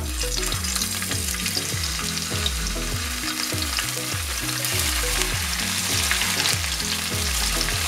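Raw grilling sausage (salchicha parrillera) sizzling and crackling in hot olive oil in a pot as it is laid in coil by coil, a steady dense spatter of fine pops.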